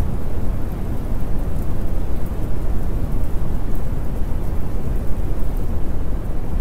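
Steady recorded rain with a low, continuous thunder-like rumble and a light hiss, sprinkled with faint scattered crackles.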